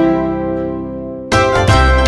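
Background music on plucked strings: a held chord fades away, then a new run of notes starts about two-thirds of the way through.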